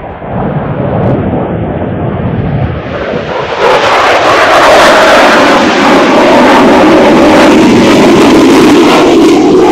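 Jet aircraft flying past low. Its engine noise grows to very loud about four seconds in and stays there, its pitch sliding lower as it goes by.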